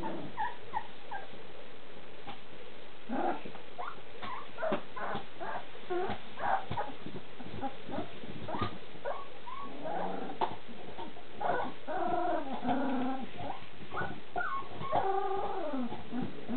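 Three-week-old golden retriever puppies whimpering and yipping in short, high calls, which crowd together into longer, wavering cries in the second half.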